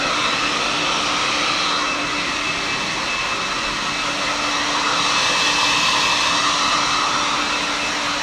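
Handheld hair dryer running steadily, blowing on wet hair: an even rush of air with a faint steady hum and a thin high whine in it, a little louder about five seconds in.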